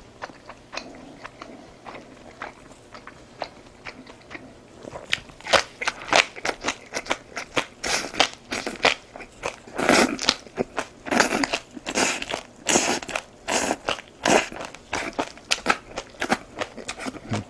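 Close-up biting and chewing of food: quieter for the first few seconds, then crisp crunches and crackles, many to the second, from about five seconds in.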